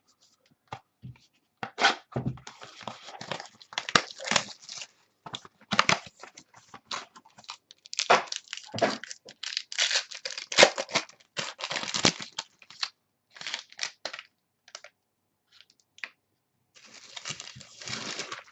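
Foil trading-card pack wrapper being torn open and crinkled by hand: irregular bursts of tearing and crackling, with a short pause about two thirds of the way through.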